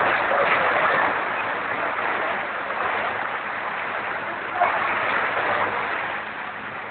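Steady rushing of floodwater, a loud even noise with faint voices under it.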